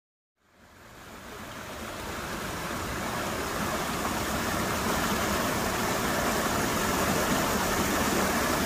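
Water from a small rock waterfall pouring and splashing into a pond, a steady rushing that fades in after a moment of silence and builds over the first few seconds.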